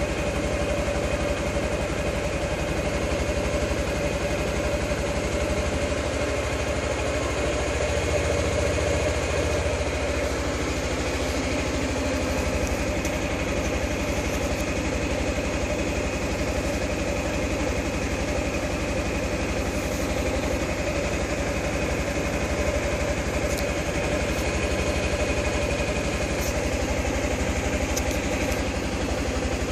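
Suzuki Burgman/Skywave scooter engine idling steadily.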